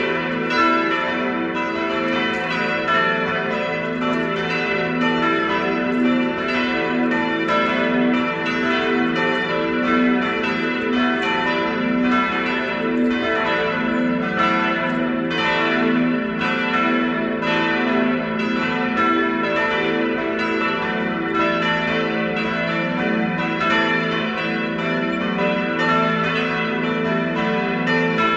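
Full peal of four church bells ringing together, their strikes overlapping in a continuous, even clangour of several pitches.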